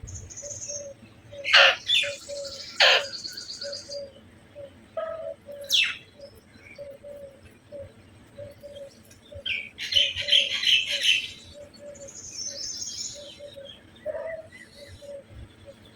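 Birds calling: a short low note repeated about twice a second, with loud, sharp, high calls breaking in a few times and a dense burst of calls about ten seconds in.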